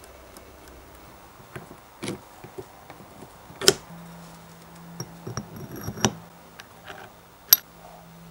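Scattered small metallic clicks and knocks of parts being handled as a grinding wheel is fitted onto a hand grinder's shaft, two of them sharp and much louder than the rest. A faint low hum sets in about four seconds in.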